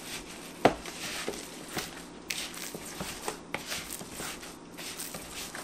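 Gloved hands kneading and squishing a raw ground-beef meatloaf mixture in a plastic mixing bowl: irregular soft squelches and knocks against the bowl, with one sharper knock under a second in.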